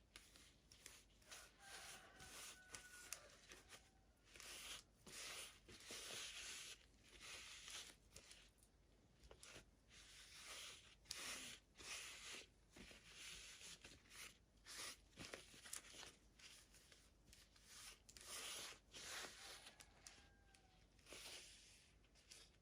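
Toy packaging being torn open and handled by hand: repeated short tearing and rustling bursts mixed with small clicks.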